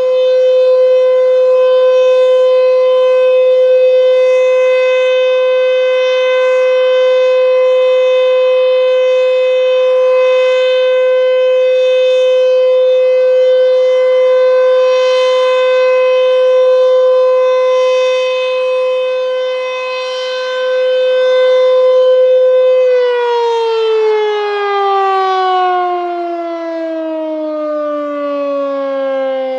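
Sentry 14V outdoor warning siren sounding a loud steady tone during a test, then about 23 seconds in it winds down, its pitch sliding steadily lower.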